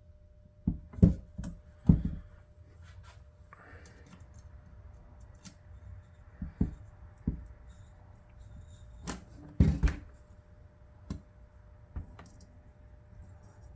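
Scattered knocks and clicks from handling the chronometer's case, parts and tools on the bench during reassembly, with a cluster of sharp knocks in the first two seconds and another pair around ten seconds in, over a faint steady hum.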